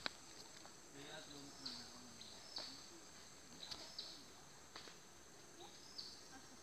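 Faint outdoor ambience: a steady high insect drone, a handful of short high chirps, and distant voices.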